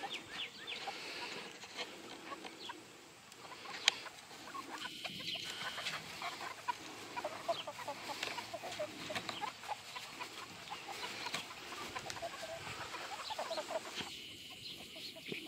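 A flock of game-cross chickens clucking, many short calls throughout, with a single sharp knock about four seconds in.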